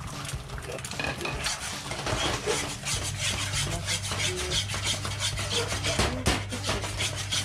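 Metal ladle scraping and stirring egg around a wok in quick, repeated strokes, over the sizzle of the egg frying.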